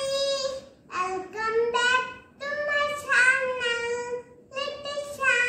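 A young girl singing a children's rhyme with no accompaniment, in long held notes with short breaks between the lines.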